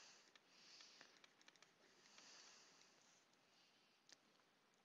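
Near silence, with faint scratching strokes and a few light ticks from a stylus writing on a tablet screen.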